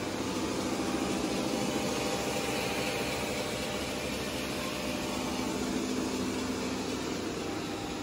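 Dean Smith & Grace lathe running: a steady machine hum with several held tones.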